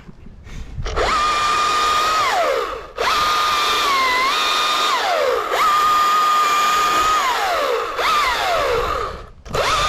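Chainsaw run at full throttle in five bursts of one to two seconds, each dropping back toward idle when the throttle is released; about four seconds in the engine pitch sags briefly under cutting load.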